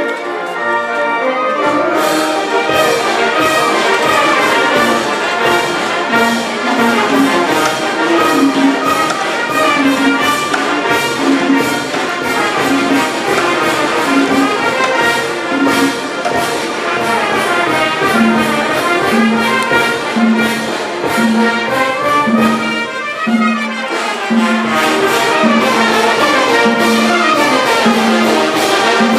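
Village brass band playing dance music: trumpets and trombones over low notes that pulse about once a second and a steady beat.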